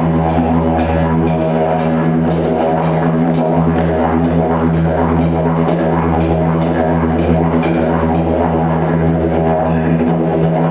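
Didgeridoo played as a continuous low drone with a rich stack of overtones, pulsed rhythmically several times a second by shifting overtones. The lowest part of the drone dips briefly about a third of the way through and again near the end.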